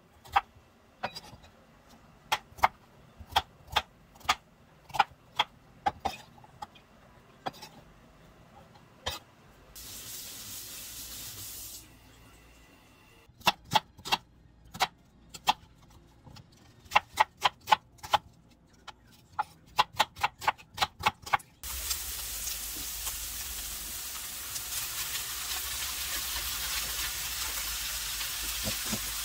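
Kitchen knife chopping on a wooden cutting board in quick single strokes, cutting potato into strips and then onion, with a short hiss in between. For the last seven seconds or so, potato strips and ground meat sizzle steadily in a frying pan.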